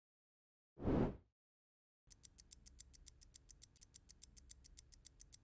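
A short whoosh about a second in, then a faint, fast clock-ticking sound effect from about two seconds in, about six or seven even ticks a second.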